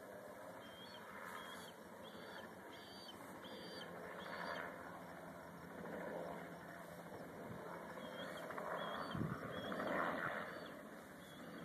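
A bird sings short repeated whistled notes, about two a second, in two runs, over a steady rush of wind and distant outdoor noise.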